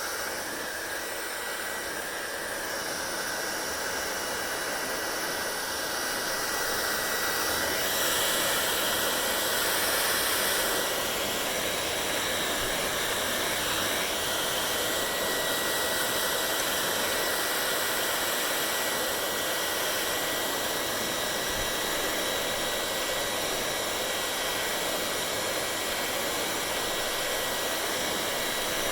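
Hair dryer running steadily: an even rush of blown air with a thin, high motor whine, growing a little louder about eight seconds in.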